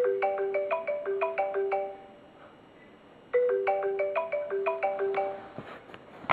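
A short melody of quick marimba-like notes played twice, the second time starting about three seconds after the first, like a looping phone ringtone or alarm tone.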